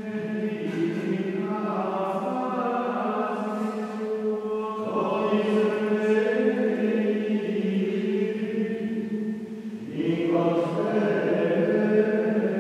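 Gregorian chant in Latin sung by the men's voices of Premonstratensian canons, with long held notes. It starts right at the beginning and moves through three phrases, with new ones beginning about five and ten seconds in.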